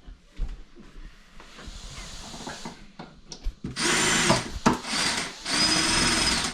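Power drill running in three short bursts starting about four seconds in, its motor whine rising and falling with the trigger, after a few seconds of light clicks and knocks.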